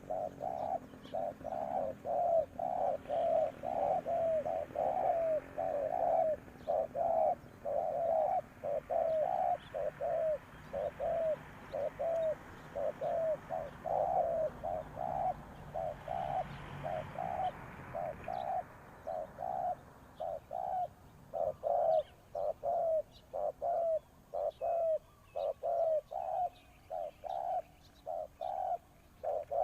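Spotted dove cooing over and over, a long unbroken run of short coo notes at about two a second.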